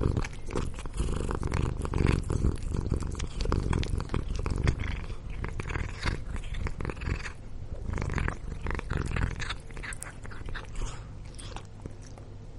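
Domestic cat purring close to the microphone: a steady low rumble with many small crackling clicks over it, growing somewhat softer toward the end.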